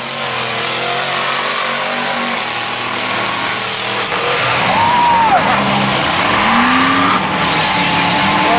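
A lifted mud truck's engine revving hard under load as it drives through a mud pit, its pitch rising and falling with the throttle and climbing about two-thirds of the way through.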